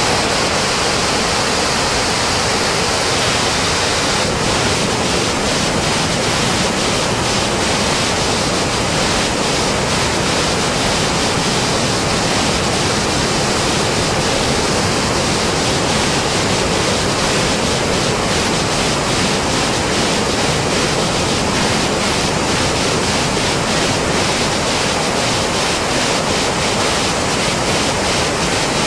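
Muddy, debris-laden flash-flood torrent rushing down a steep rocky slope after a cloudburst: a loud, steady rushing of water that does not let up.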